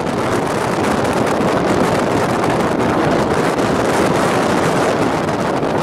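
Strong wind buffeting the microphone outdoors in a severe thunderstorm: a loud, steady rushing noise that does not let up.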